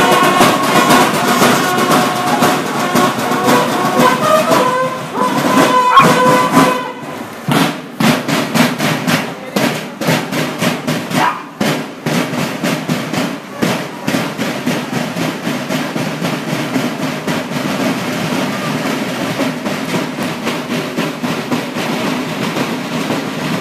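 Marching band of bugles and drums practising in the street: the bugles play a call for the first several seconds, then the snare and bass drums carry on alone, beating a steady marching cadence.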